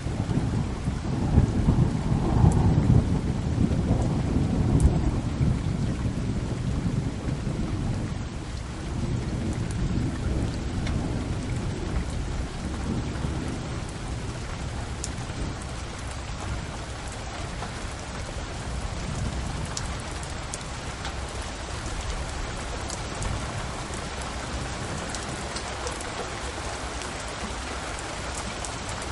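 Steady outdoor background noise: a rushing hiss over a low rumble, heavier and more uneven in the first six seconds, then settling, with faint scattered ticks.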